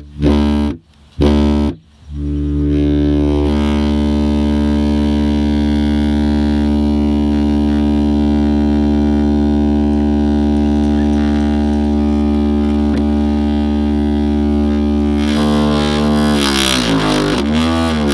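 Subwoofer playing a low computer-generated test tone, a steady buzzing drone rich in overtones, while cornstarch oobleck on its cone is shaken into lumps. The tone cuts out twice briefly near the start. Near the end its pitch wavers, sweeps down, then climbs back up.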